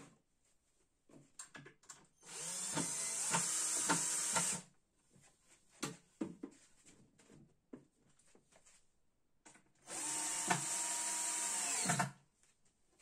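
A cordless drill-driver running twice, about two seconds each time, driving screws into the particleboard panels of the booth; its whine rises as it spins up and drops as it stops. Small knocks and clicks from handling the boards come between the two runs.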